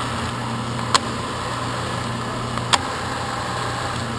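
Burgmaster turret drill press running with a steady motor hum while its six-spindle turret is indexed round, clicking sharply into the next chuck position twice, about a second in and again near three seconds.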